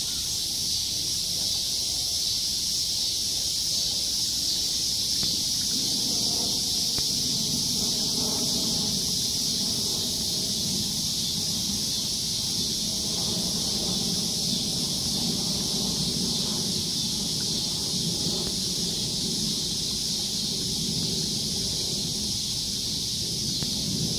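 Steady high-pitched hiss of outdoor background noise, with a faint low hum underneath.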